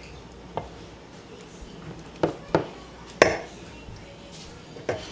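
A utensil knocking against a baking pan as mashed potato is scooped and spread into it: five sharp knocks, the loudest a little past three seconds in.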